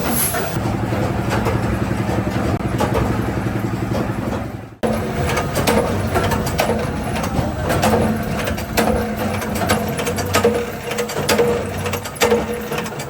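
Workshop machine running with a steady motor hum and a fast, even rattle, which stops abruptly about five seconds in. Then comes a machine hum with frequent sharp metallic clicks and knocks.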